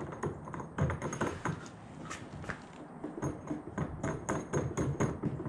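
Irregular clicking and tapping of hard parts, several knocks a second, as a scupper transducer mount is fitted and its bolt done up under a kayak hull; the clicks stop near the end.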